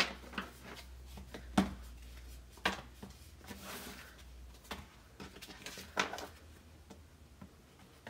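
Paper cards and a small cardboard box being handled and slid together: scattered light taps and knocks with a brief rustle of cards being pushed in.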